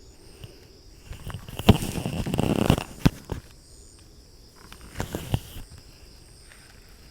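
Two spells of rustling with several sharp knocks close to the microphone, the first about a second in and longer, the second about five seconds in, over insects trilling steadily.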